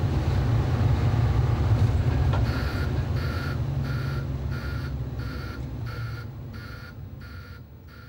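Volvo B10 coach's diesel engine running with a steady low rumble as the coach drives along. From about two and a half seconds in, a short electronic beep repeats about one and a half times a second, and everything fades out near the end.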